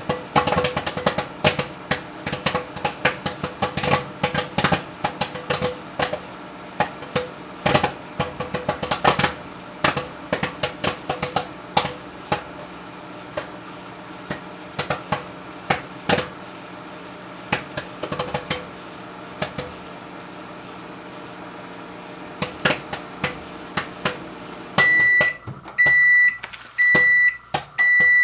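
Angie's Boom Chicka Pop Real Butter microwave popcorn popping inside a running microwave oven: many rapid pops over the oven's steady hum, thinning out as the popping slows. The oven stops about 25 seconds in and beeps four times to signal it is done.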